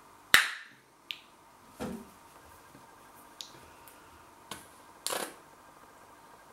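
Plastic squeeze bottle of chilli sauce being handled: its flip-top cap opens with a sharp click, followed by a few fainter clicks and rustles. About five seconds in there is a short, noisy splutter as the upturned bottle is squeezed onto a teaspoon.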